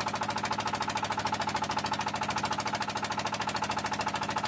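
Small outrigger boat's engine running steadily, a rapid, even chugging.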